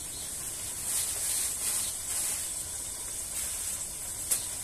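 Pot of frozen leeks sizzling steadily in hot oil and pepper paste on a small stove. A few soft handling sounds come through, and there is one sharp click near the end.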